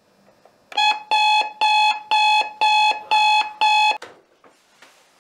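Digital alarm clock beeping: seven loud beeps of one pitch, about two a second, that stop abruptly as it is switched off, followed by a faint rustle.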